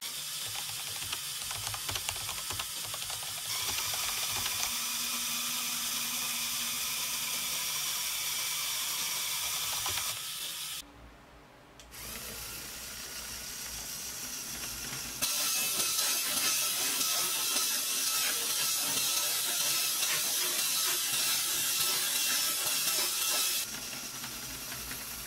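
Electric motor and plastic gear train of a battery-powered Lego Technic vehicle running, a steady whirr with gear clatter. It dips briefly about 11 seconds in, then runs louder for most of the second half before dropping near the end.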